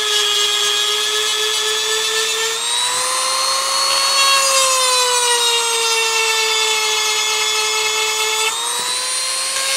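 EzzDoo rotary tool's diamond bit whining at high speed as it grinds a chipped chainsaw cutter tooth. The pitch sags and picks back up twice, about two and a half seconds in and again near the end.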